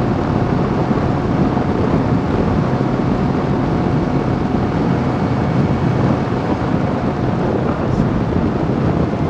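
Wind rushing over a helmet camera's microphone on a Suzuki SV650S motorcycle riding at dual-carriageway speed, a steady, even noise with the bike's engine and road noise underneath.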